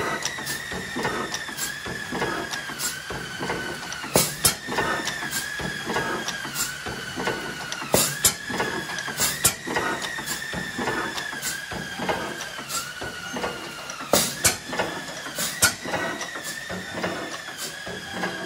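Blackstone hit-and-miss oil engine running: a steady click of the valve gear about every two-thirds of a second, with a sharper, louder bang every few seconds as it fires. A thin high whine rises and dips in time with the clicks.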